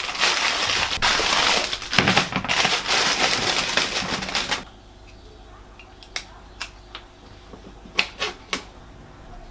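Plastic bag crinkling and rustling for about the first four and a half seconds, then stopping abruptly. After that, a handful of sharp clicks as green beans are cut with a small knife.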